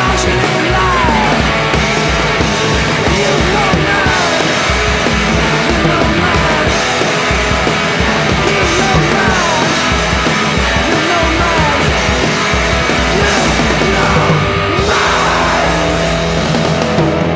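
Punk rock band recording playing loud and dense: drums, bass and guitars, with short lead lines that slide in pitch.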